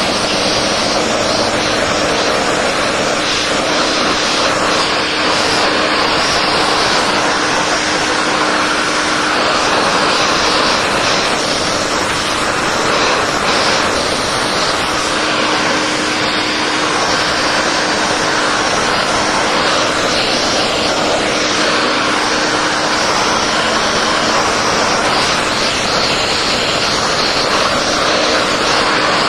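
VacuFlo 560 central vacuum running while vacuuming a car's interior: a loud, steady rush of air through the hose with a steady hum beneath it.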